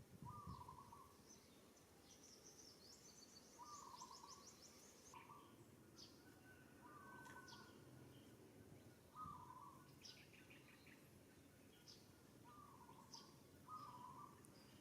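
Faint birdsong: one bird repeats a short call every second or two, while other birds give scattered higher chirps and a brief trill.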